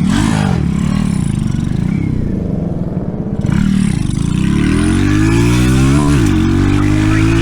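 RPS Racer 140 mini bike's 140cc four-stroke single running through a stainless steel side-exit exhaust while riding. The revs rise and fall in the first half, then climb steadily under acceleration, with a quick drop at a gear shift about six seconds in.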